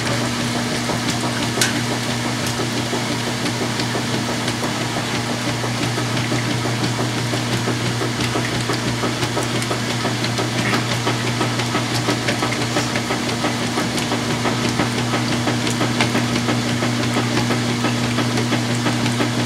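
Whirlpool-built direct drive washer in high-speed agitation during the rinse: a steady motor hum under water and towels sloshing with each stroke of the agitator.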